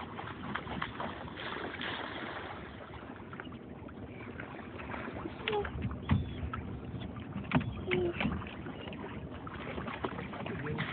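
Pelicans splashing and jostling in the water as they scramble for thrown fish carcasses, over a steady rush of noise, with several sharp knocks between about the middle and two-thirds of the way through.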